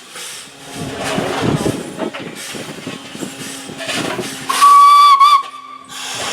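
Steam locomotive letting off steam in irregular puffs and hissing, then one short steam whistle blast about four and a half seconds in, lasting about a second and wavering as it ends; the whistle is the loudest sound.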